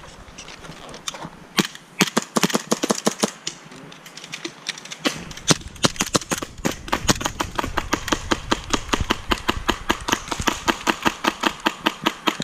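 Airsoft guns firing BBs: sharp cracks, scattered at first, then a quick, fairly steady string of shots, about four a second, from about halfway through.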